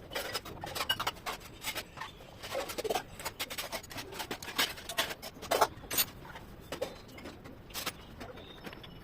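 Irregular light clicks and knocks, several close together at times, from hand tools and metal parts being handled during reassembly of an engine.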